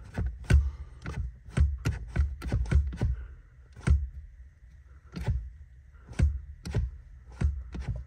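Accelerator pedal of a VW Mk2 Golf, worked by hand, clicking and knocking in an irregular string as it is pushed down and let back. Its throttle cable, now fitted with a Mk3 throttle cable adapter, has no slack.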